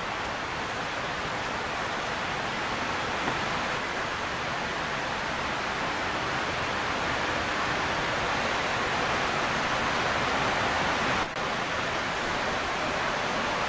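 Heat gun blowing steadily, an even rushing hiss that dips briefly once about eleven seconds in, as used to heat-form window tint film to the glass.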